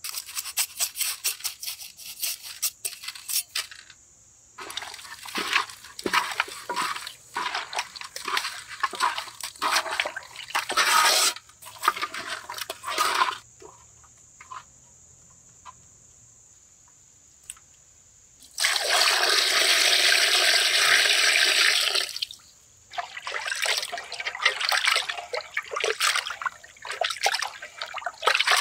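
Hands washing cut fish in a pot of water: irregular splashing and sloshing, then a steady pour of water lasting about three seconds, about two-thirds of the way through, then more splashing.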